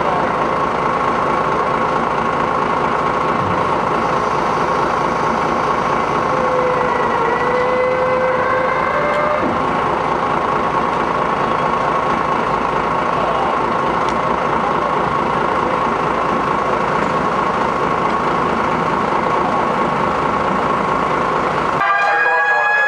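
Building fire alarm ringing continuously, a steady high ring over engine and street noise. Near the end, after an abrupt change, an emergency-vehicle siren starts with falling pitch.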